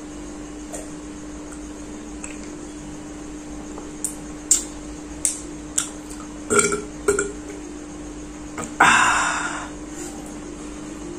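A man burping after gulping iced tea: a few short clicks of swallowing, two short burps about six and a half and seven seconds in, then one longer, loud burp about nine seconds in that fades away.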